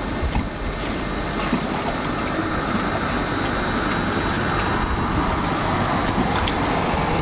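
Steady outdoor noise: a low, uneven rumble of wind buffeting the microphone, with a hiss of water washing on the shore that swells mid-way.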